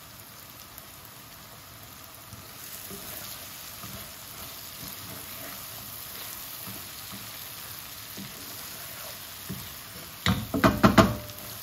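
Okra stir-fry sizzling steadily in a frying pan as it is stirred with a wooden spatula. Near the end comes a quick cluster of loud knocks of the wooden spatula against the pan.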